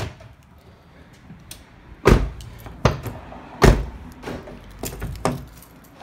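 A short clunk from the 2003 Ford Expedition's rear door lock actuator, then about six heavy knocks and thumps from the door and its handle being worked, the loudest near the middle.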